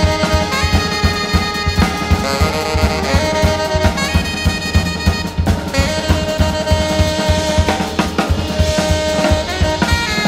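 Live jazz band: a tenor saxophone plays long held notes over busy drum-kit playing.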